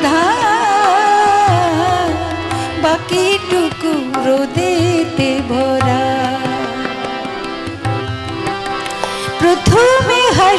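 A woman singing a Bengali adhunik song live in long, ornamented, wavering notes, accompanied by a harmonium's sustained chords and tabla.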